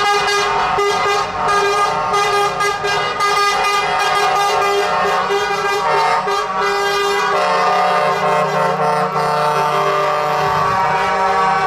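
Several truck air horns blaring together in a dense chord, sounded in quick repeated toots for the first several seconds and then held more steadily, over the low hum of truck engines.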